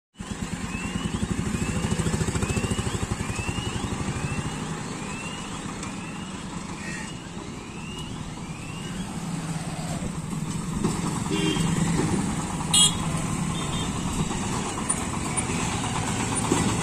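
Road traffic crossing a level crossing: a motorcycle engine runs close by with fast pulsing at the start, and other engines pass. A high rising chirp repeats about once a second for the first nine seconds, and there is a brief loud sound about thirteen seconds in. Near the end a diesel utility cart's engine thuds rapidly as it passes.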